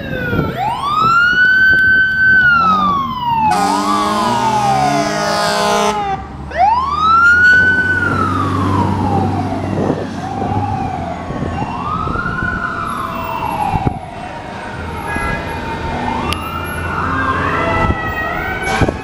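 FDNY fire trucks' sirens: a Q-style siren winds up to a high scream, holds and coasts down, several times over, mixed with a PA300 electronic siren sweeping up and down. About 4 seconds in, an air horn blasts for a couple of seconds.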